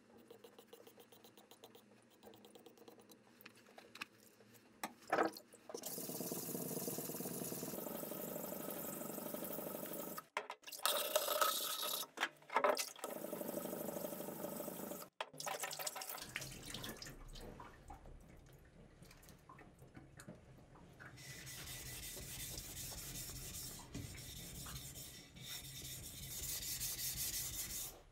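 Wet green whetstone being lapped flat, a flattening plate rubbed back and forth across its face in a steady gritty scraping, with water running from a tap. It starts after several quiet seconds of faint ticks.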